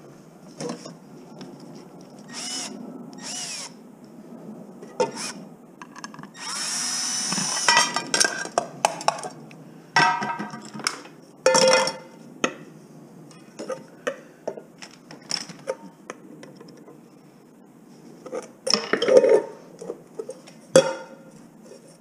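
Cordless drill run in short bursts, the longest about a second and a half with a rising whine, while taking apart scrap metal pots and pans. In between, pots and pans clank and knock as they are handled on the bench, one ringing briefly when struck.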